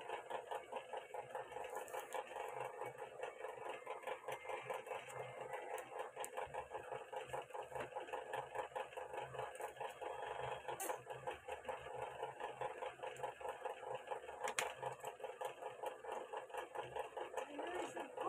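A small machine running steadily with a fast, even pulse of about five beats a second, with a couple of sharp clicks.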